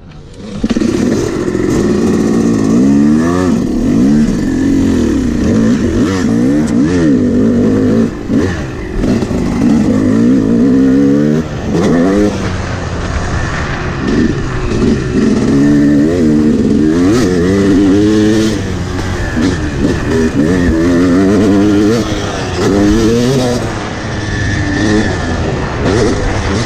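Yamaha YZ250X two-stroke dirt bike engine being ridden hard, its revs repeatedly climbing and dropping as the throttle is opened and rolled off through the gears.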